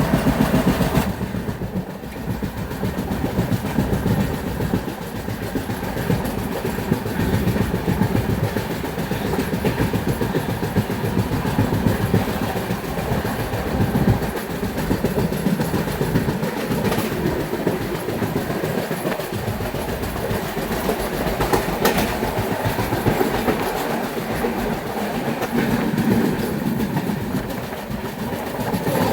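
Moving train running on the track: a continuous rumble with wheels clicking and clattering over the rails, a little louder for the first second, then steady.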